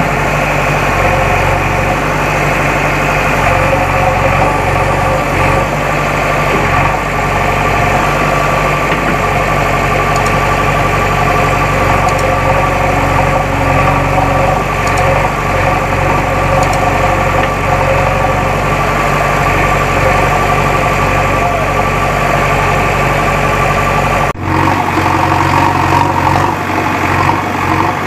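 JCB backhoe loader's diesel engine running steadily. The sound changes abruptly about three-quarters of the way through, with the deepest part of the engine note dropping away.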